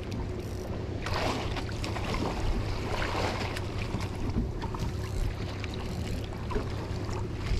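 Small outrigger fishing boat at sea: water washing against the hull and wind on the microphone over a steady low rumble, the wash swelling louder for a couple of seconds about a second in.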